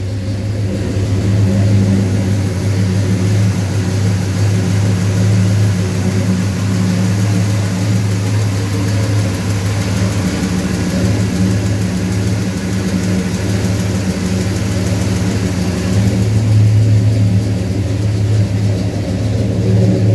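A freshly rebuilt Pontiac 400 V8 with a Ram Air III camshaft in a 1970 Pontiac GTO, idling steadily shortly after a cold start. It gets a little louder about sixteen seconds in.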